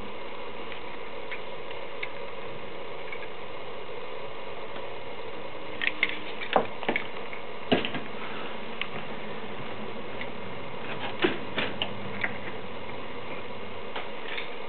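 Camera handling noise: scattered sharp clicks and knocks, bunched around the middle, over a steady hum as the camera is moved about.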